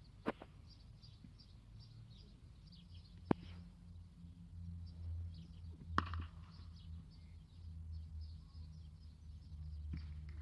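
Three sharp cracks of a cricket bat striking the ball, about three seconds apart, over faint outdoor ground noise with bird chirps.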